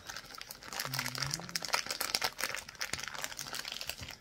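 A metal spoon stirring thick banana bread batter with chopped walnuts in a glass mixing bowl: a run of quick scrapes and clicks against the glass.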